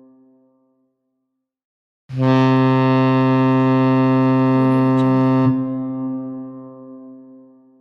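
Ship's horn. The fading end of one blast, a pause of about a second and a half, then one steady low blast of about three and a half seconds that stops abruptly and rings away over the next two seconds.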